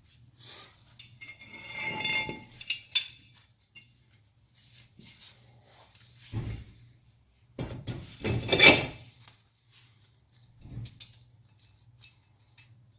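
Metal car parts and hand tools clinking, scraping and knocking in several separate bouts during wheel hub work. There is a brief metallic ring near the start, the loudest clatter comes about two thirds of the way through, and a low steady hum runs underneath.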